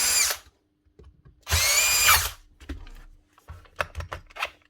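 Milwaukee cordless grinder's motor whining high-pitched in two short bursts as the trigger is pulled, unable to turn because a failed bearing has jammed it. Several clicks and knocks follow near the end.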